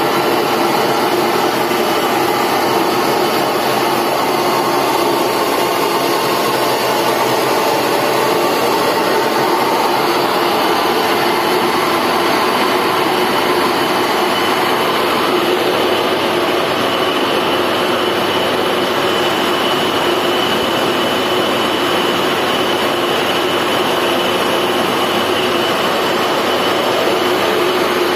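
Fire tender's engine-driven fire pump running steadily, with a constant hum and a faint high whine.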